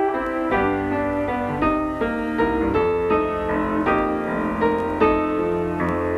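Instrumental credits music: a keyboard plays a melody of short, quickly changing notes over a sustained low bass note.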